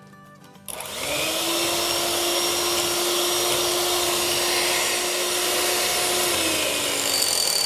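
Electric hand mixer switching on about a second in, its motor whining up to speed and running steadily as the beaters whip gram-flour batter to aerate it, then slowing near the end.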